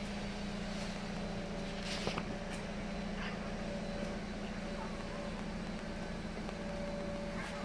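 Steady low machine hum, with a faint higher tone coming and going over it and a sharp click about two seconds in.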